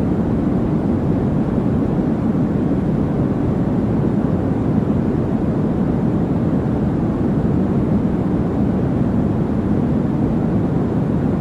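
Steady sleep-aid noise track: an even, unchanging rushing sound weighted towards the low end, like a deep rumble more than a hiss.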